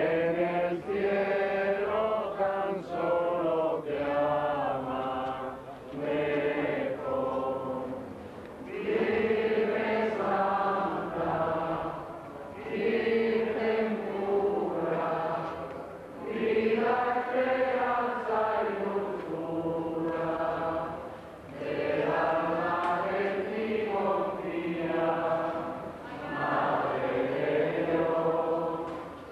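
A group of Rocío pilgrims singing together in long sung phrases, each about three to five seconds, with short breaks between them.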